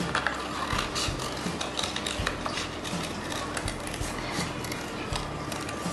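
Small scissors snipping around a circle in thin yellow cardstock: short, irregular snips and the rustle of the card being turned between cuts.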